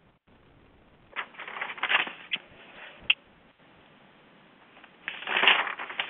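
Bursts of rustling, crackling noise with a few sharp clicks, loudest near the end, as from a microphone being handled or brushed on an open call line.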